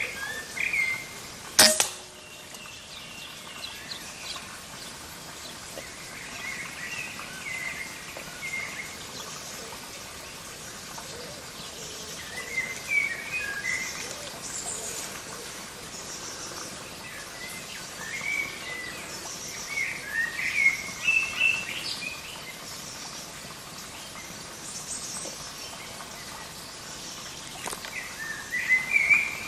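One short, sharp shot from a silenced .177 Gamo Coyote pre-charged air rifle about two seconds in, followed by birds chirping on and off.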